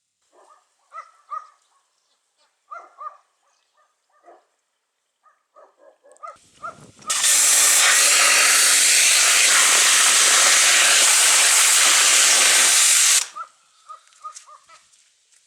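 High-pressure washer jet spraying: a loud, steady hiss of about six seconds that starts about halfway through and cuts off suddenly. Scattered short squeaks come before and after it.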